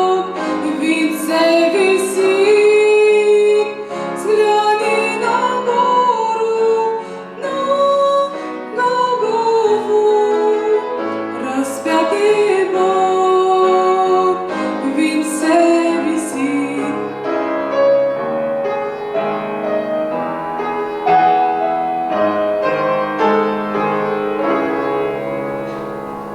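A woman singing a Russian church song with piano accompaniment; it fades away near the end.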